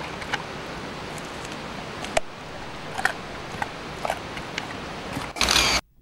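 Steady hiss with scattered small clicks and rustles close to the microphone. Near the end comes a brief loud burst of noise, which cuts off suddenly to near silence.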